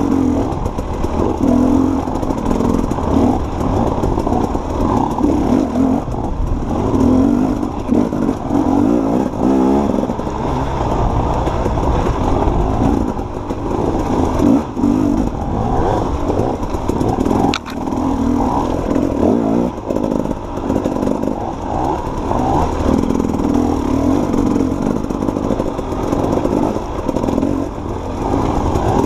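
Dirt bike engine ridden slowly along a rough woodland trail, its revs rising and falling every second or two, with knocks and clatter from the bike over uneven ground.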